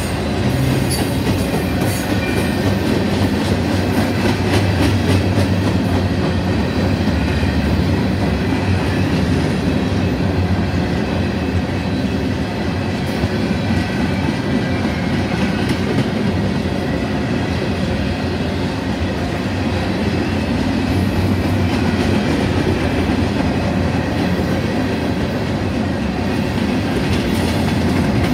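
Freight cars rolling past at close range: a steady rumble and rattle of steel wheels on rail, with clicking over the rail joints and a faint high wheel squeal.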